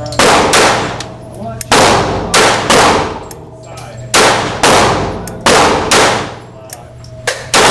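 Smith & Wesson M&P 22 .22 rimfire pistol firing about nine shots in an uneven string, some pairs quick and others a second or more apart, each shot ringing out with a long echo.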